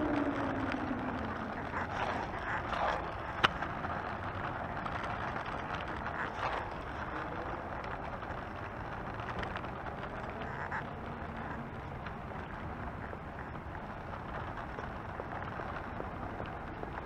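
An Oxelo Town 9 EF V2 kick scooter's wheels rolling steadily over asphalt, an even rumble and hiss. A siren's falling wail fades out in the first second, and there is one sharp click about three and a half seconds in.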